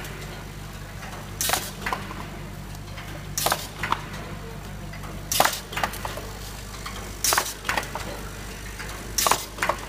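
Box overwrapping machine running in a steady cycle: a sharp mechanical clack followed by a couple of lighter clicks about every two seconds, five times, over a constant motor hum.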